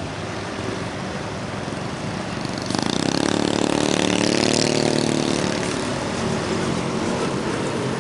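Traffic on a hairpin bend: steady road noise, then about three seconds in a yellow light diesel truck's engine swells loudly as it comes round the bend close by, and eases off over the next few seconds.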